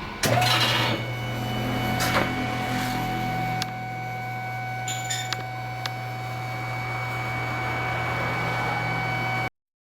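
Steady mechanical hum with a constant whine, broken by several sharp knocks and clicks in the first six seconds.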